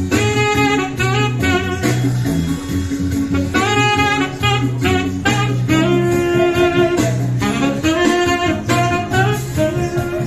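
Saxophone playing a song melody live in held notes and short phrases, over a backing track with bass and a steady beat.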